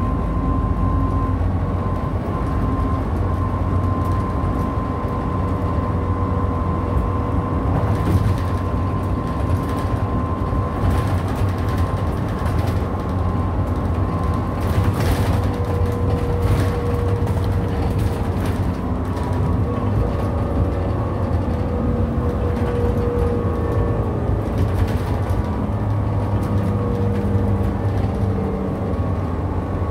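Inside a city bus cruising at freeway speed: steady engine and driveline drone with tyre and road noise, a faint whine held at a steady pitch, and light rattles from the body and fittings through the middle stretch.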